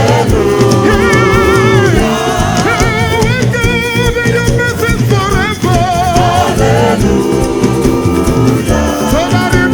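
Gospel praise singing with vibrato over a band and drums, with a steady beat.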